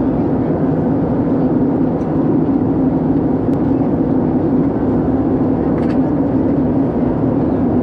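Airbus A320 cabin noise at a window seat in flight: a steady drone of the engines and rushing air, with a strong low hum and no change in level.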